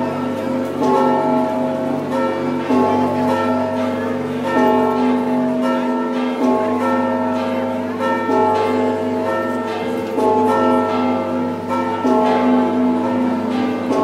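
Cathedral tower bells ringing a peal: several bells of different pitch struck in turn, about one stroke a second, each left ringing on so the tones overlap continuously.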